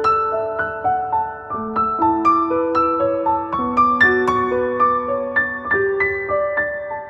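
Background piano music: a slow melody of single struck notes, about two or three a second, each left to ring into the next.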